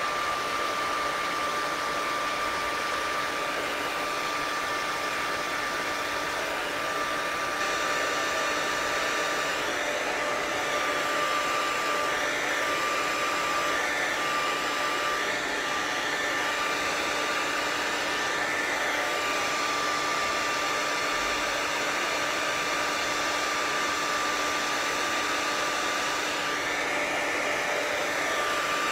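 Handheld hair dryer fitted with a diffuser, running steadily while drying wet curly hair: an even rush of air with a steady whine over it.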